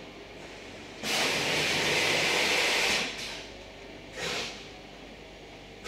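Rustling hiss of a thin synthetic cushion-insert shell and fibre fill being handled as the insert is stuffed: one steady rustle lasting about two seconds, then a brief second rustle about a second later.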